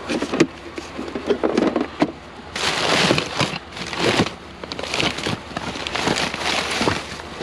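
Hands rummaging through a pile of discarded toys and boxes: irregular clacks, knocks and rustling, with a few louder rustling spells in the middle.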